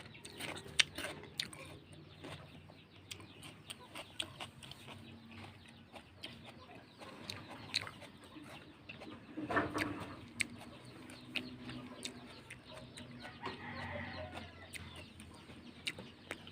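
Wet chewing and mouth clicks from eating juicy honeydew melon, with faint bird calls in the background, most audible a little past the middle.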